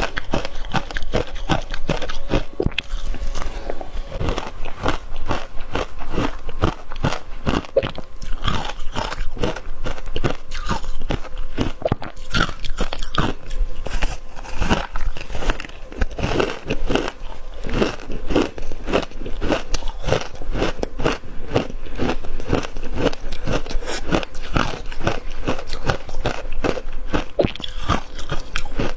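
Ice being bitten and chewed close to the microphone: a continuous run of sharp, crackling crunches, many per second.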